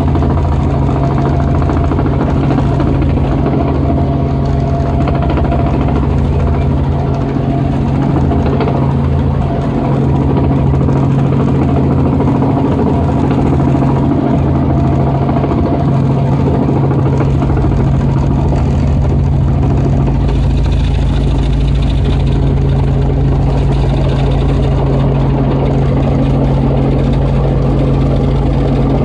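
Robinson R44 Raven II helicopter in flight, heard from inside the cabin: the steady drone of its six-cylinder piston engine and rotors. A deeper rumble grows stronger about two-thirds of the way through.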